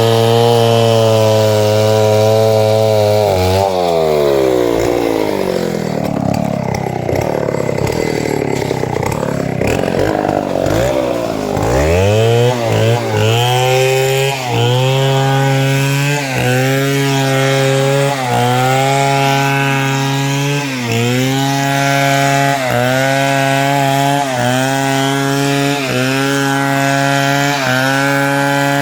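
Chainsaw cutting a log into planks, its engine running under load. A few seconds in its speed sinks and wavers for several seconds, then picks back up and holds steady, with a brief dip in pitch every second or so as the chain bites into the wood.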